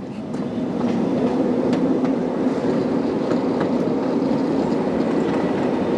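Ride-on miniature replica train running on its narrow-gauge track, getting louder through the first second as it gets under way and then running steadily, with irregular clicks of the wheels over the rail joints.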